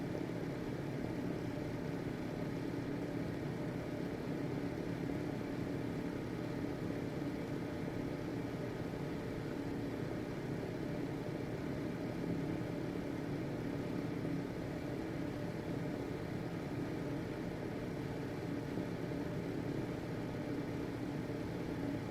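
Household ventilation fan running steadily: an even motor hum with a few steady tones over a soft whoosh of moving air.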